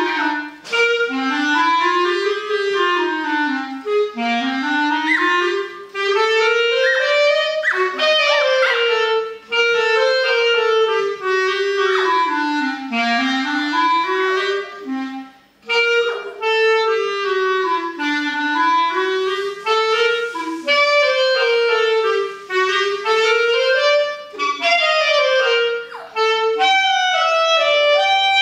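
A melody instrument playing rising and falling runs of notes, one note after another, almost without a break. A Yorkshire terrier howls along with its muzzle raised near the start.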